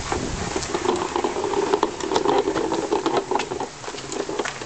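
Plastic push-along toy rattling and clicking as a toddler pushes it over the ground, over a steady engine-like drone that fades about four seconds in.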